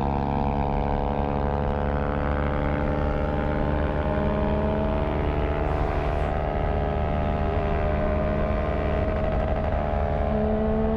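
Motorcycle engine running at a steady cruise, its note holding nearly constant pitch with only a slight drift.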